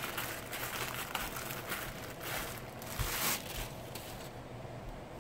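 Packaging rustling and crinkling as it is handled and an item is pulled out, in irregular bursts for about three seconds before it quiets down.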